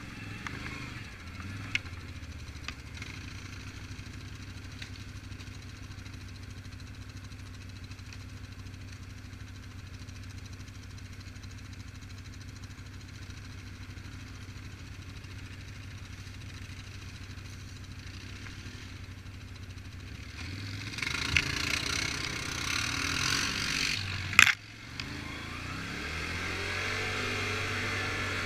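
Quad bike (ATV) engine running steadily at low revs, then about 21 seconds in it gets louder as the quad pulls away, with a single sharp knock a few seconds later and the engine revving up along the trail.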